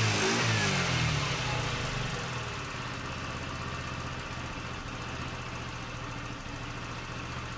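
Small scooter engine idling, its revs easing down over the first couple of seconds and then running steadily.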